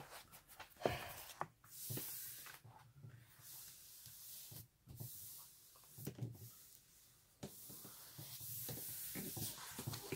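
Hands moving a large sheet covered in plastic protective film and smoothing across it: irregular rustling, brushing and light taps.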